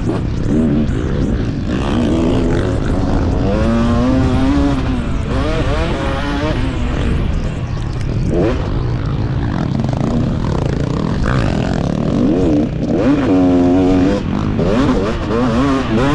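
KTM 250 two-stroke motocross bike at race pace, close up from the rider's onboard camera. The engine revs climb and drop again and again as the rider rolls on and off the throttle.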